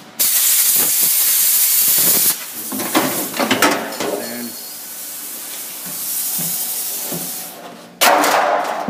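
A power cutting tool slicing through a car's sheet-metal body: a loud hissing noise that starts abruptly, breaks off after about two seconds, goes on more softly with a few metal knocks, and comes back loudly near the end.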